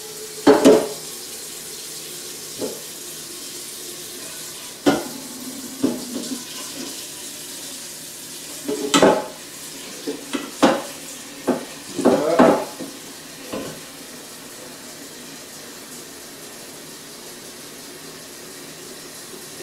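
Kitchen tap running steadily into a metal cooking pot in the sink, with the pot clanking and knocking several times as it is handled.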